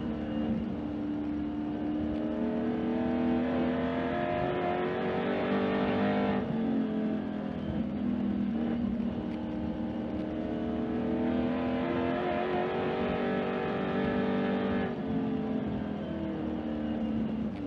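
Race car's engine heard from inside the cockpit, rising in pitch under throttle along a straightaway and dropping sharply as the driver lifts for the turn. This happens twice, about six seconds in and again about fifteen seconds in, before it climbs again.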